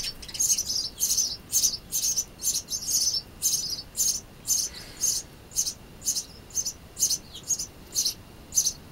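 Small birds chirping over and over, short high-pitched chirps about twice a second, a little louder and denser in the first few seconds.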